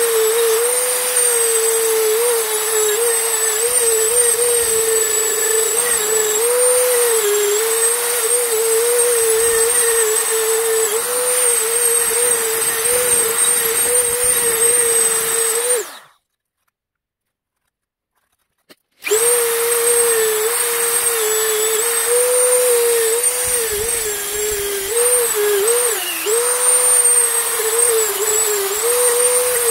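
Handheld rotary tool with a small thin disc spinning at high speed against the metal housing of an EGR valve. Its steady high whine dips briefly in pitch each time the disc is pressed to the metal. The sound cuts out for about three seconds a little past halfway, then starts again.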